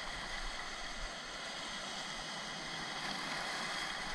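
Surf washing over a rocky shore, a steady hiss of surging water.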